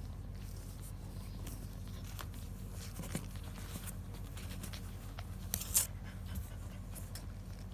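Soft rustling and handling sounds as newborn French bulldog puppies are picked up and moved about on a blanket, over a low steady hum, with a brief louder scuffle about six seconds in.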